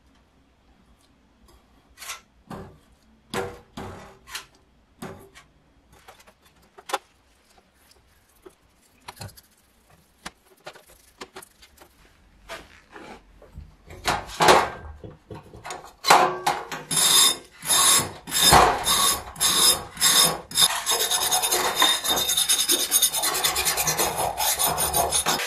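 A hand brush scrubbing paint stripper over a rusty metal hand-drill part in a steel tray. The first half has scattered knocks and scrapes; the brush strokes then come quicker and merge into continuous rapid scrubbing over the last few seconds.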